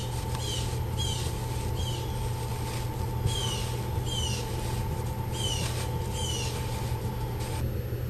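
Half-inch copper tubing being twisted back and forth into fiberglass ductboard, squeaking as it cuts a round hole: short high squeaks that each fall in pitch, one or two a second. A steady low hum runs underneath.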